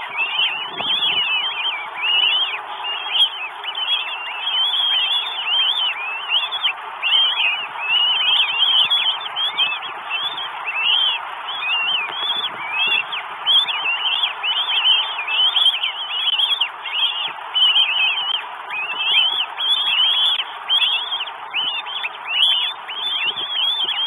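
Northern goshawk at the nest calling over and over: short, high, nasal notes, several a second without a break, over a steady hiss.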